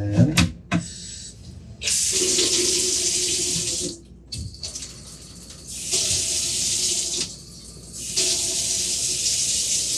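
Newly installed kitchen faucet running water into the sink, turned on three times for a couple of seconds each with short pauses between: a test run of the new faucet, checking it for leaks.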